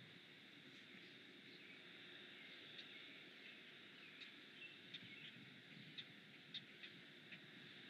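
Faint countryside ambience: a steady high hiss with short, sharp chirps and ticks scattered through it, coming more often from about three seconds in.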